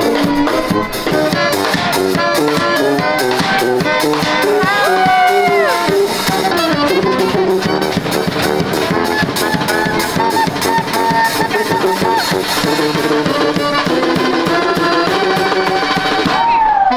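A street band plays a brass tune: two saxophones and a sousaphone over a drum kit keeping a steady beat, with sliding horn notes about five seconds in and again near the end.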